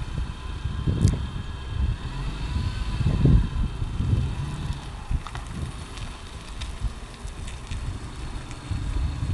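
Wind buffeting the microphone in uneven gusts, over the engine of a small car running at low speed as it manoeuvres.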